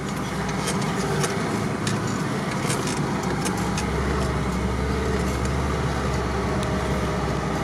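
Niva driving slowly over a snowy off-road track, heard from inside the cabin: steady engine and tyre rumble that gets heavier about halfway through, with scattered small knocks and rattles from the body and suspension over bumps.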